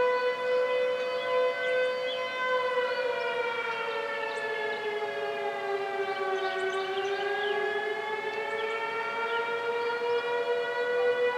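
Outdoor storm warning siren sounding a chord of steady tones that dips slightly in pitch midway through and rises back.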